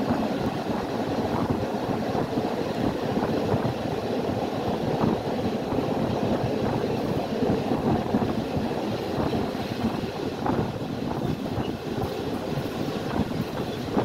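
Steady rumble of an intercity passenger train rolling on the rails, heard from inside the carriage, with a few faint clicks of the wheels near the end.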